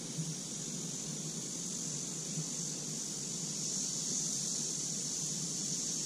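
Steady high hiss over a low, even rumble, with no distinct bird calls or clicks.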